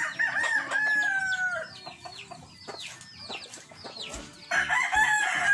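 Roosters crowing. One crow trails off about a second and a half in and another starts near the end, with short high chirps between them.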